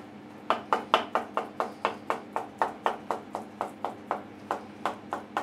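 Chef's knife rapidly chopping soft tofu-based vegan cheese on a plastic cutting board: an even run of blade knocks on the board, about five a second, starting about half a second in.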